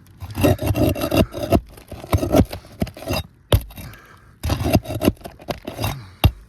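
Asphalt roof shingles being pried up and scraped while a roofing nail is worked loose: irregular rough scraping, with a sharp click about three and a half seconds in and another near the end.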